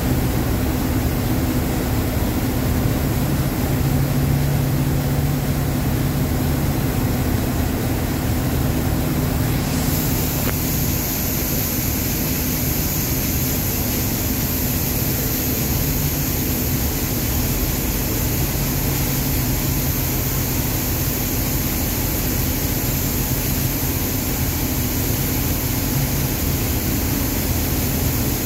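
Heavy diesel engine of a wheel loader with a tyre handler, running steadily with a low drone. A high hiss joins about ten seconds in and holds.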